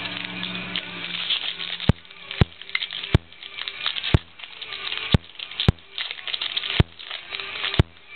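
Sharp, very short clicks, about one a second at uneven spacing, over a steady background hiss; typical of digital glitches from a faulty camera's audio.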